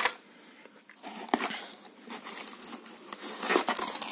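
Hands handling lure packaging in a cardboard parcel box: scattered taps, clicks and plastic rustles, a few about a second in and busier in the last second.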